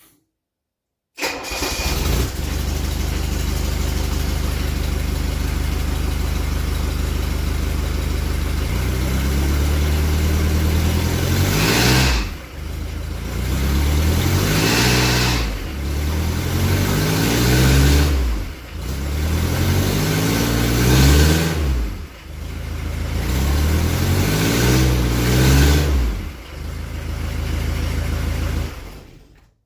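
Mercedes OM616 four-cylinder diesel engine running through a newly built, tack-welded exhaust with a Saab muffler. It cuts in about a second in and idles steadily, then is revved up and back down about five times, run up to check the new exhaust for rattles or rubbing.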